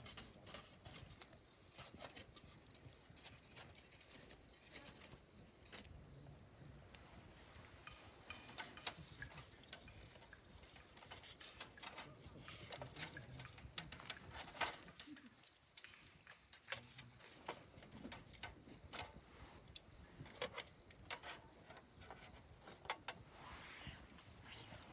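Scattered light clicks and knocks of small objects being handled, at a low level, with one sharper knock about halfway through.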